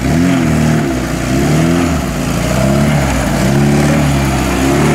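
Car engine revving hard, its pitch climbing and dropping again and again about once a second as the throttle is worked on a rough off-road stretch.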